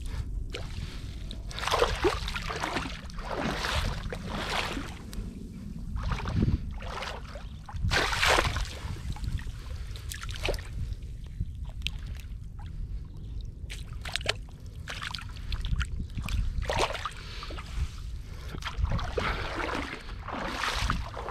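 Water splashing and sloshing in irregular bursts, every second or two, as a mullet gill net is hauled in from the water, over a steady low rumble.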